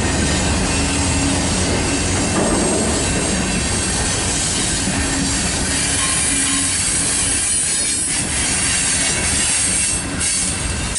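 Loaded freight cars of a slow-moving manifest train rolling past: a steady, loud rumble of steel wheels on rail, with faint high-pitched wheel squeal.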